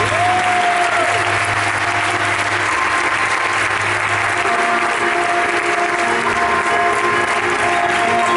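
Audience applauding over background music with long held notes; a low bass note in the music stops about four and a half seconds in.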